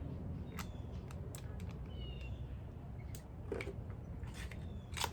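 A few scattered clicks and taps of small items being handled, with a steady low rumble underneath.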